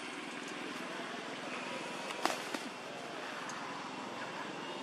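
Steady outdoor background noise, with one sharp click a little over two seconds in and a fainter click just after.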